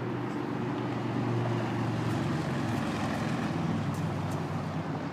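Low, steady engine hum, swelling a little about a second and a half in and easing off toward the end, with a few faint light clicks over it.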